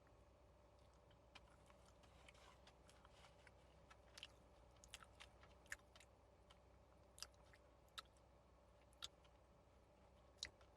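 Faint chewing of a doughnut, with scattered soft mouth clicks and smacks.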